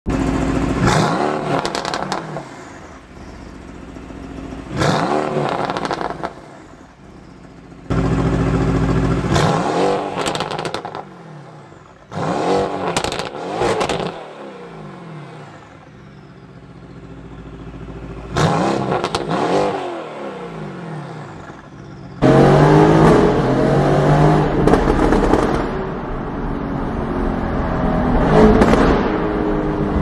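Mercedes-AMG GT R's twin-turbo V8 through a catless valvetronic exhaust with the valves open, revved five times while standing. Each rev falls back in pitch with pops and crackles. About 22 seconds in it gives way to steady, continuous running as the car is driven under way.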